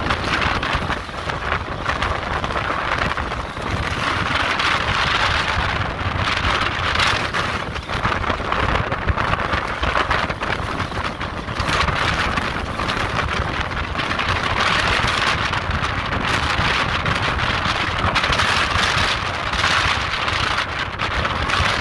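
Rough storm sea breaking against a sea wall: a steady rush of surf that swells and eases every few seconds. Storm wind buffets the microphone, rumbling underneath.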